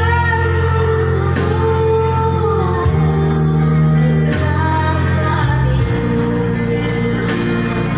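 A song playing: a singing voice over accompaniment with a sustained bass line that changes note every second or two.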